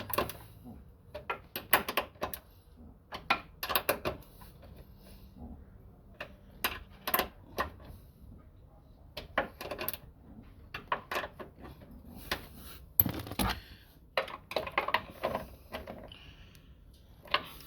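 Wrench and metal fasteners clicking and clinking in short, irregular clusters of sharp clicks as the nuts and bolt holding a car door's check arm are tightened.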